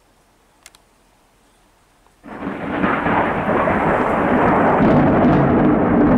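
Thunder: near silence, then a clap breaks suddenly about two seconds in and goes on as a loud, unbroken rumble.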